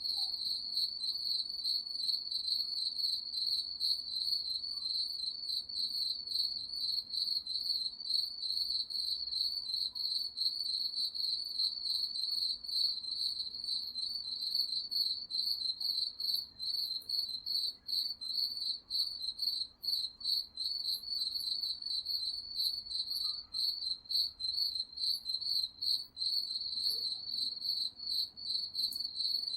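Crickets chirping in a continuous, high-pitched stream of rapid pulses.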